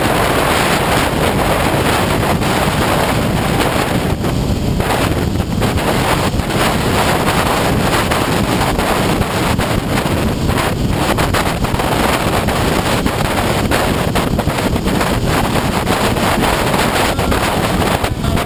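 Heavy wind rush buffeting the microphone of a camera mounted on a motorcycle at road speed, a steady loud roar of noise that dips briefly a few times.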